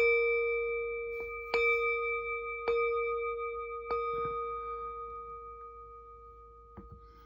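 Brass singing bowl struck four times, about a second or so apart, each strike renewing a steady ringing tone that slowly fades away.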